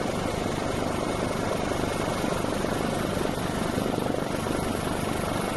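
Helicopter engine and rotor noise heard from on board, a steady even din with a low hum underneath.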